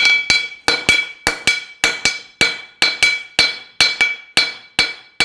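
Farrier's hammer striking a horseshoe on a steel anvil in a steady rhythm, about two blows a second, with a lighter second tap after most blows and a metallic ring. This is the drawing of a toe clip: its base is being set on the shoe.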